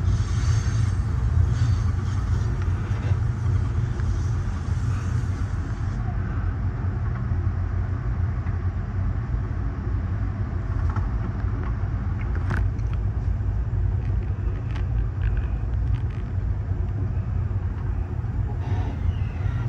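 Steady low rumble of an Amtrak Superliner coach rolling along the track, heard from inside the car: wheels on the rails and the car body running. A few faint clicks come in the second half, the sharpest about twelve and a half seconds in.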